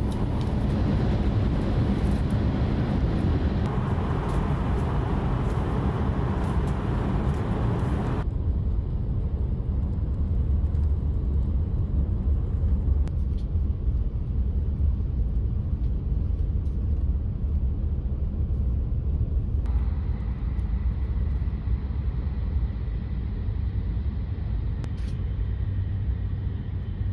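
Steady low rumble of a Hayabusa shinkansen cabin while the train runs at speed. The noise steps down suddenly about eight seconds in and shifts again later.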